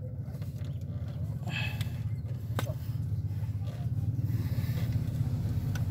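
Steady low mechanical hum in the background, with a few sharp metallic clicks as a socket wrench is worked on the alternator's mounting bolts, one clear click about two and a half seconds in.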